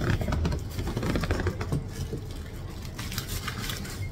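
Paper wrapping rustling and crinkling as it is handled, a dense run of small crackles.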